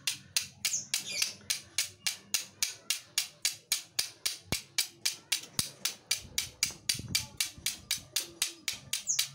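Flint and steel struck rapidly and evenly, about four to five sharp scraping strikes a second.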